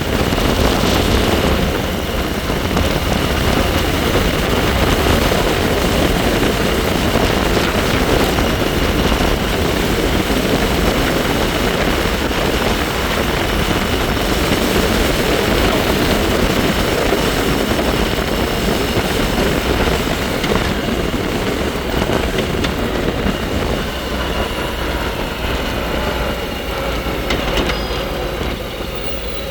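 Wind rushing over the microphone during a bike ride, with the bike's steady high whine running underneath. Faint tones glide up and down near the end.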